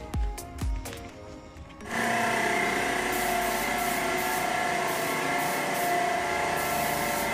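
Background music with a beat, cut about two seconds in by a portable air compressor running steadily while a paint spray gun hisses on and off.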